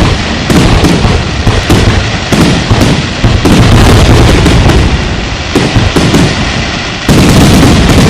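Aerial firework shells bursting in a rapid, continuous barrage, loud overlapping booms with crackling in between.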